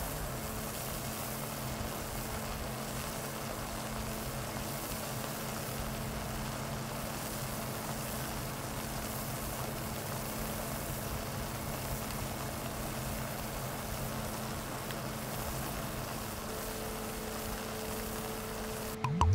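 Steady low mechanical hum with a hiss, as of a running machine; a second, higher steady tone joins late on, and a sudden louder sound breaks in at the very end.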